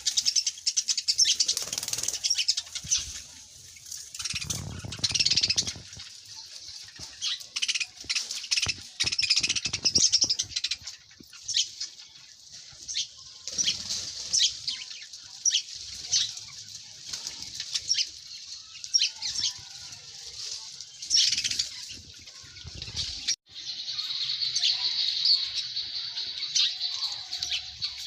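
Small birds chirping, with many quick high chirps overlapping, and bursts of low rustling about four seconds in and again near 22 seconds. About 23 seconds in the sound cuts abruptly to denser, steadier chirping chatter.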